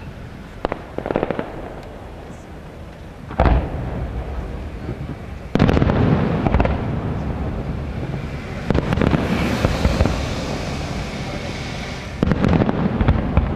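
Aerial firework shells bursting, with sharp booms at uneven intervals: two light ones early, a heavier one about three and a half seconds in, a big one near five and a half seconds, then more near nine and twelve seconds. From the big burst on, a continuous crackling hiss of bursting stars fills the gaps between the booms.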